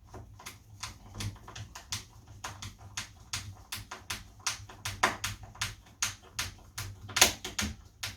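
Small flat-head screwdriver turning a tiny screw by hand into a door handle's metal backplate: a run of light, irregular clicks, a few a second.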